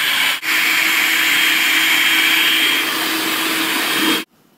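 Electric food processor running steadily, puréeing cooked pumpkin: a loud, even motor noise that drops out for a moment about half a second in and stops suddenly about four seconds in.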